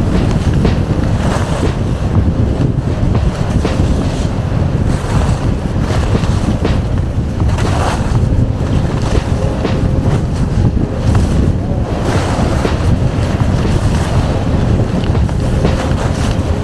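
Wind buffeting the microphone of a skier's camera on a downhill run, a loud, steady low rumble. Skis hiss over the snow, the hiss swelling every few seconds.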